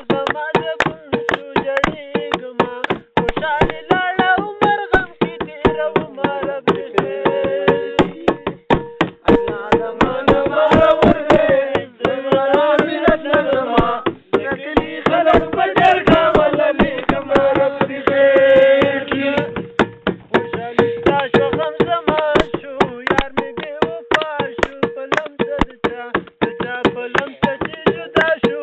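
A song: a voice singing a melody over a fast, steady clicking beat, with a held tone sounding underneath.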